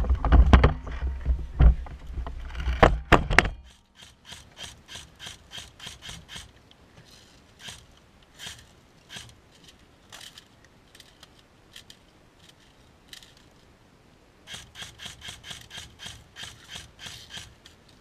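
Knocks and rubbing as a scoped airsoft rifle carrying the camera is handled and laid on the gravel, for the first few seconds. After that come two quieter spells of light clicking at about four clicks a second.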